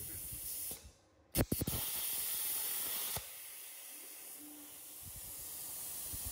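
Harbor Freight Titanium 65 amp plasma cutter's torch on a CNC robot cutting a hole in steel plate: after a brief dip, the arc strikes with a sharp crack about one and a half seconds in and hisses loudly as it cuts. The arc cuts off suddenly about three seconds in, leaving a quieter steady air hiss.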